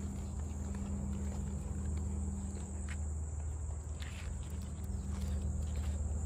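Summer woodland ambience: insects drone steadily at a high pitch, with footsteps on a paved path and a low steady rumble of movement beneath. A few faint ticks sound about halfway through and again near the end.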